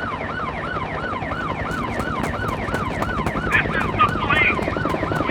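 Emergency vehicle siren yelping, its pitch sweeping quickly up and down about two and a half times a second. A second, higher siren joins about three and a half seconds in, and a fast regular clicking comes in about two seconds in.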